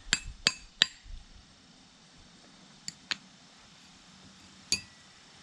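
Light metal-on-metal clinks with a short ring: three in quick succession in the first second, two more about three seconds in, and one near the end.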